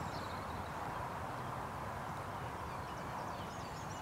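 Open-field ambience: a steady background hiss and low rumble, with faint high chirps of small birds, mostly near the end.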